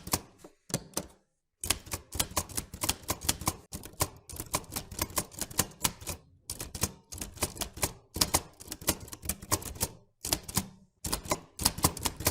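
Typewriter keys striking in quick, irregular runs of sharp clacks, broken by a few short pauses.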